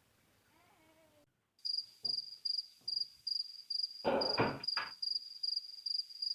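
An insect chirping steadily at one high pitch, about two and a half chirps a second, starting about a second and a half in. A brief scraping rustle of three strokes comes about four seconds in.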